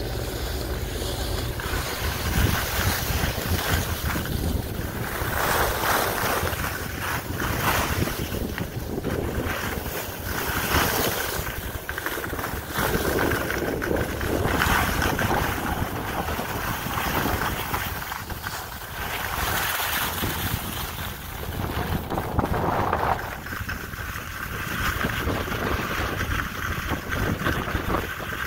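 Wind rushing over the microphone of a camera carried by a skier going downhill, mixed with the hiss of skis sliding on snow. The noise swells and fades every few seconds as the turns and speed change.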